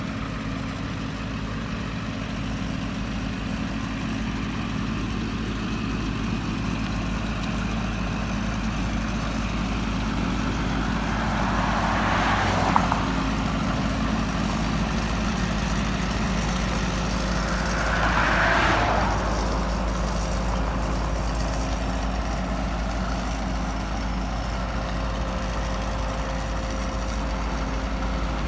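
Steady low engine hum, like an idling motor vehicle, with two louder swells of vehicle noise passing by, a little under halfway through and again about six seconds later, and a short click at the first swell.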